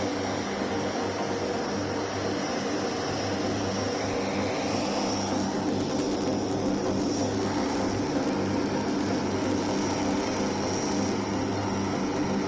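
The four turboprop engines of a Lockheed Martin C-130J-30 Super Hercules, Rolls-Royce AE 2100D3s driving six-blade propellers, running steadily as the aircraft taxis: a constant propeller drone with a steady low hum.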